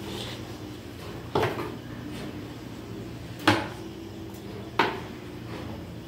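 Three sharp knocks, the middle one the loudest, as ceiling-fan parts are handled: the downrod and its canopy bracket knock against each other while the wire is fed through. A steady low hum runs underneath.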